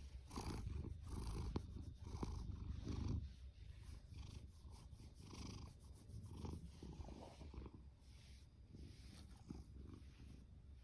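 Domestic cat purring, a low rumble that swells and eases with its breathing, louder for the first three seconds and softer after.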